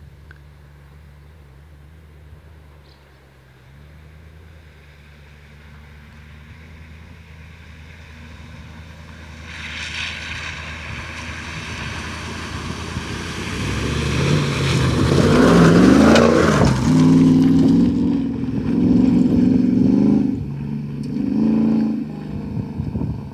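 A Land Rover Series 1 with a V8 engine drives through a flooded track. The engine grows louder as it approaches, with a rush of splashing water about ten seconds in. From about fourteen seconds it is loud, its revs rising and falling several times as it comes close, then easing off near the end.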